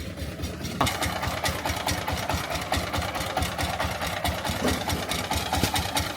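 Engine-driven rice hulling machine running with a steady, rapid knocking beat. About a second in it gets louder and harsher.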